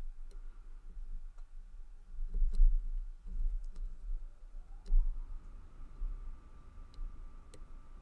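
Scattered small metallic clicks and ticks of a dimple pick working the pins of a Burg Wachter Boccia brass dimple padlock under tension. There are two duller low bumps from the lock and vise being handled about two and a half and five seconds in.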